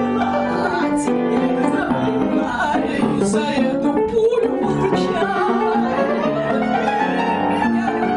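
A woman singing to upright piano accompaniment, her voice gliding and wavering in pitch over held piano chords.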